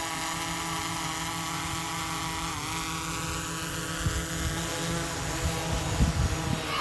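Small DJI camera drone hovering, its 4-inch propellers giving a steady whine made of many stacked tones. The pitch dips briefly about two and a half seconds in, and a few low bumps sit under the whine.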